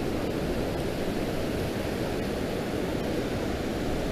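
Steady rumble of ocean surf breaking on the beach, mixed with wind on the microphone.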